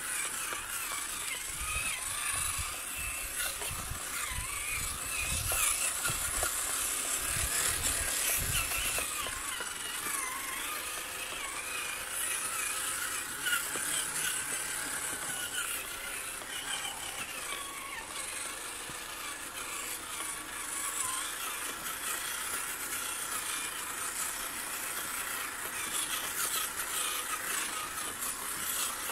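Traxxas TRX-4 1979 Ford Bronco RC crawler's electric motor and geared drivetrain whining, the pitch rising and falling with the throttle as it crawls over moist sand. A few low thumps come in the first nine seconds.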